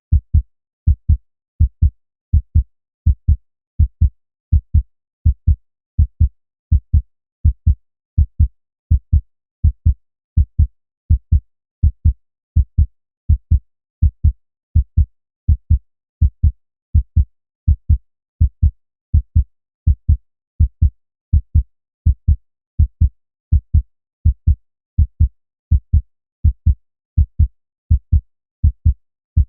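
Human heartbeat, a steady lub-dub: pairs of low, dull thumps repeating evenly, roughly once a second.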